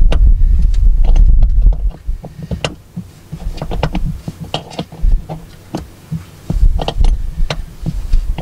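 Wind buffeting the microphone in loud low gusts, strongest in the first two seconds and again near the end, over scattered sharp clicks and knocks of hands and metal parts being worked at a truck's battery terminals.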